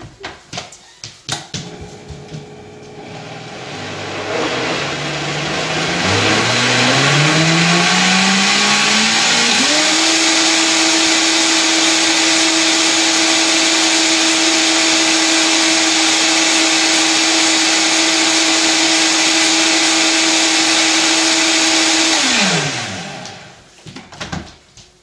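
Countertop blender with a few knocks at the start, then its motor spinning up, the whine rising in pitch over several seconds, running steadily at high speed to purée a thick milk, fruit and vegetable blend, and winding down near the end.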